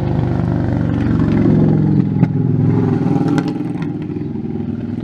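An engine running steadily at a constant speed, with a few sharp clicks over it.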